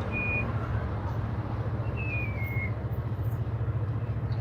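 Steady low machine hum with a fast flutter, with a short high beep near the start and a short high tone that steps downward about two seconds in.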